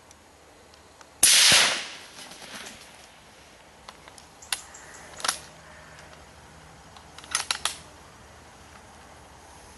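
One rifle shot about a second in, its report trailing off over the following half second, followed by a few short sharp clicks later on.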